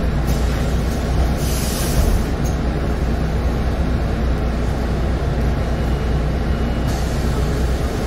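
The DAF PR265U1 diesel engine of a Solaris Urbino 18 III articulated bus idling steadily while the bus stands still, heard from inside the cabin at the front. There is a short hiss about a second and a half in.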